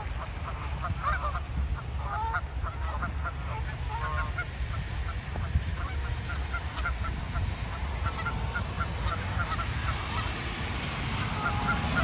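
A flock of Canada geese honking, with many short calls from several birds overlapping throughout, over a low steady rumble.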